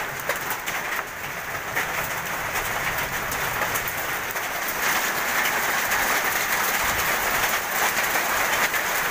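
Heavy hailstorm: hailstones pelting down and striking hard surfaces in a dense, steady clatter of countless sharp ticks, growing a little louder about five seconds in.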